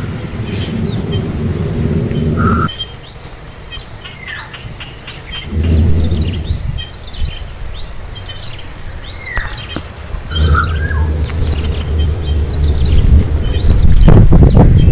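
Many short, quick, high bird chirps scattered through, over a steady high pulsing insect buzz. Bouts of loud low rumbling noise come and go: in the first few seconds, around the middle and in the second half, and again near the end.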